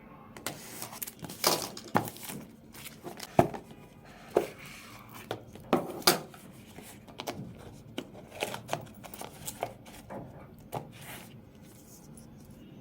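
Hands unpacking a smartwatch box: irregular clicks, taps and rustles of cardboard and plastic packaging being handled.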